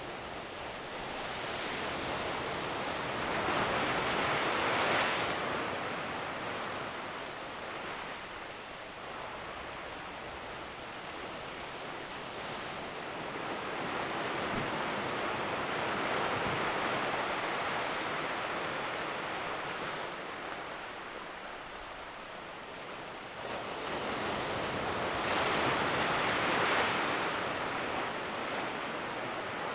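Ocean surf churning against a rocky shore, swelling and ebbing in three big surges about ten seconds apart.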